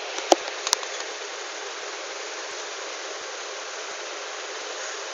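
Steady background hiss, with two short sharp clicks about a third of a second and three-quarters of a second in as the phone is handled.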